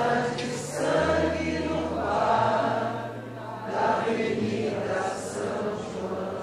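A samba song sung by several voices together, over low guitar notes that change pitch every second or two.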